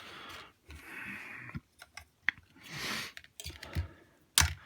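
Plastic toy parts being handled: bursts of rustling and a few sharp clicks, the loudest click near the end.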